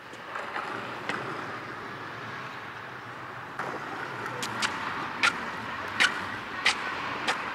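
Skateboard rolling on an asphalt path: a steady rolling noise from the wheels. In the second half come a series of sharp clicks, about one every half to three-quarters of a second.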